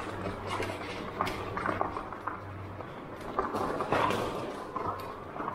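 Electric bike rattling and clattering over a rough, rocky surface inside a tunnel: many irregular sharp knocks and clicks over a steady rumble, with a low steady hum for the first half or so.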